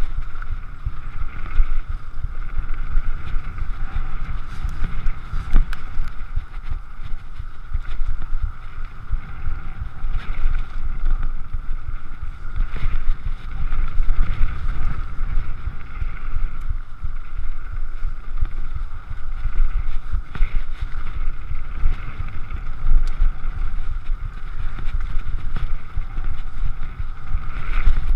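Downhill mountain bike rolling fast down a dirt and gravel trail, with wind buffeting the microphone, tyre noise and frequent knocks and rattles from the bike over the rough ground. A steady high whirr runs under it.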